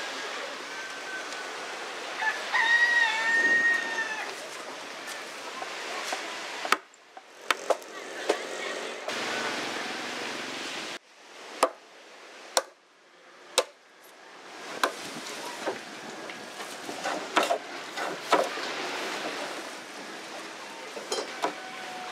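Hand axe chopping timber: a run of sharp wooden knocks, several about a second apart, mid-way through. A rooster crows once near the start over outdoor background noise.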